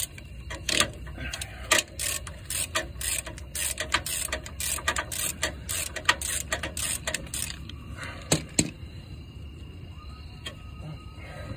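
Hand ratchet clicking in quick runs of short back-and-forth strokes as it loosens the top nut of a front differential mount. The clicking stops about two-thirds of the way through, after a last couple of clicks.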